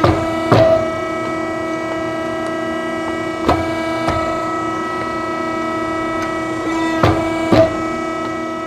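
Steady hum of a Corbin CHP-1 hydraulic swaging press running, with sharp metallic clicks in pairs about every three and a half seconds.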